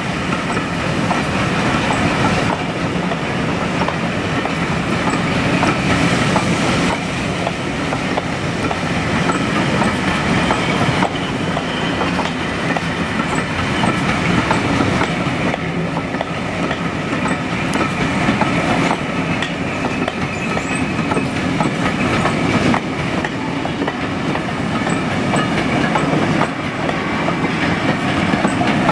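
Passenger coaches of a steam-hauled train rolling slowly past at close range, their wheels clicking over the rail joints in a steady clickety-clack.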